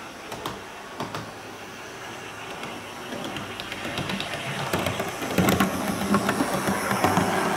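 Model railmotor (IDR Models Victorian Railways DERM) running on the track: a steady motor hum with light clicking from the wheels, growing louder over the second half as it approaches.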